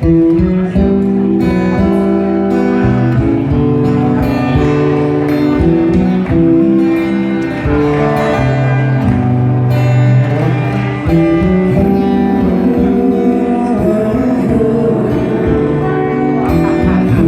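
Instrumental introduction to a song, led by acoustic guitar playing strummed and plucked chords over steady low notes, starting abruptly at once.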